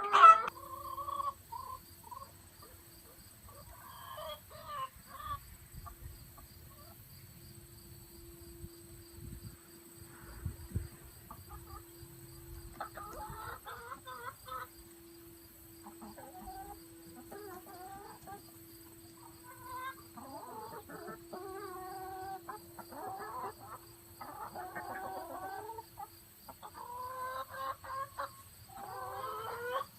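A flock of laying hens clucking and calling on and off, busier in the second half, over a faint steady hum.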